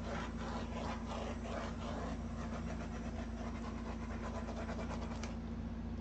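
Small handheld torch running with a steady hiss as it is played over wet acrylic paint to pop air bubbles. The hiss thins out shortly before the end, and a single sharp click comes right at the end.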